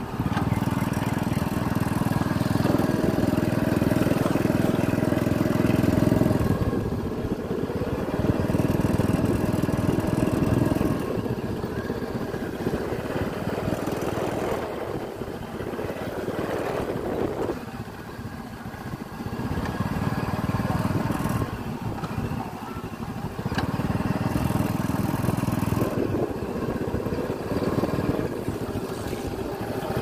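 Motorcycle engine running as it rides along a rough dirt track, its note swelling and easing several times with the throttle, over a rushing noise of wind and road.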